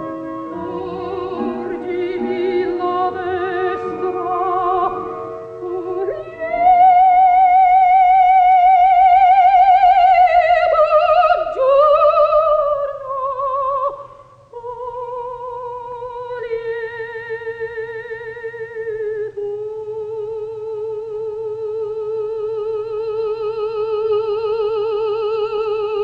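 Operatic music: after a few seconds of instrumental opening, a high voice sings long held notes with a wide vibrato, moving slowly between a few pitches.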